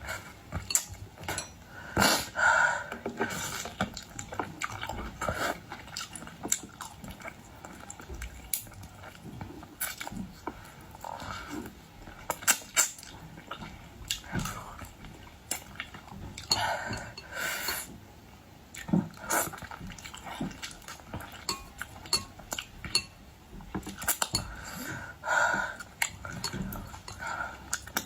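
Eating at a table: irregular clicks, clinks and knocks of cutlery against dishes, scattered unevenly throughout.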